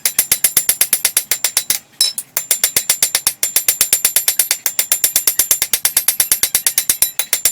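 Rapid, evenly spaced hammer blows on a hot steel knife blade forged from car coil spring, about six strikes a second, with a brief pause about two seconds in.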